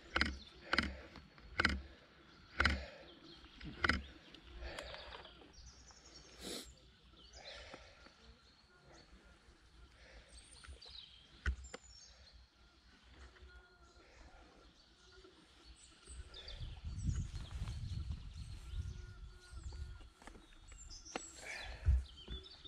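Riverside outdoor ambience with small birds chirping. A run of about one thump a second comes in the first few seconds, and a low rumble rises for several seconds later on.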